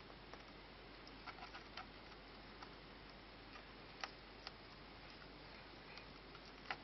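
Near silence: a faint steady hiss with a few soft, scattered clicks.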